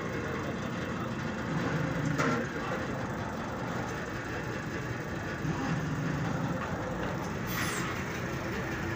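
Hydraulic press running steadily as its ram bears down on a bent excavator boom pin to straighten it, with a sharp click a little after two seconds and a short squeal falling in pitch near the end.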